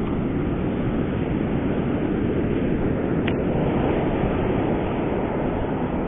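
Ocean surf rushing steadily onto the beach, with wind blowing across the microphone. A single short click sounds about three seconds in.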